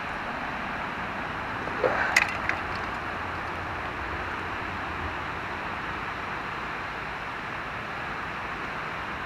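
Steady rushing noise of river water at the dam. About two seconds in comes a short cluster of sharp clicks and knocks.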